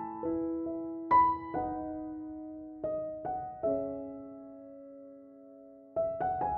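Background piano music: notes and chords struck and left to ring out, with one chord held and fading for a couple of seconds in the middle.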